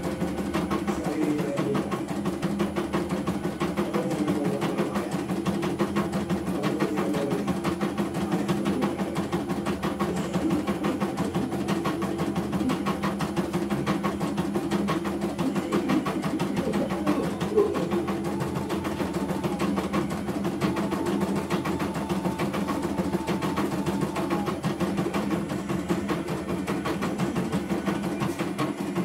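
CNY E900 computerized embroidery machine stitching a design, its needle running in rapid, even strokes with a steady motor hum.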